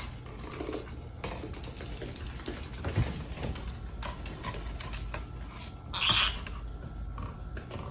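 Irregular light clicking and tapping, like typing, with a brief louder rustle about six seconds in.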